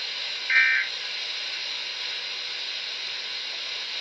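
A short, harsh two-tone digital data burst of a SAME emergency-alert signal about half a second in, the end-of-message code that closes a weather alert, over steady radio static hiss.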